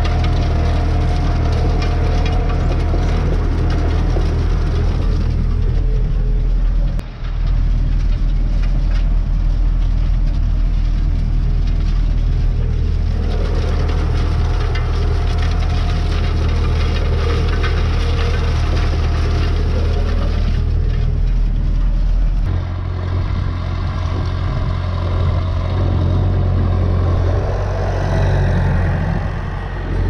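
Massey Ferguson 390 tractor's four-cylinder diesel engine running steadily under load, pulling disc harrows through ploughed soil. The engine note drops out briefly about seven seconds in and shifts about three-quarters of the way through.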